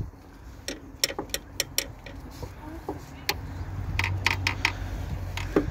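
Metal clicking and clinking of a socket wrench worked on the drive-belt tensioner to release the belt tension: two short runs of sharp clicks, about a second in and about four seconds in, over a low hum.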